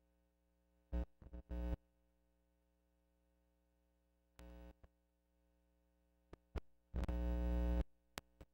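A steady, buzzy hum of one fixed pitch, heard only in short snatches. It cuts in and out abruptly: about a second in, again around four and a half seconds, and for most of a second near seven seconds. Dead silence lies between the snatches, and a few sharp clicks come near the end.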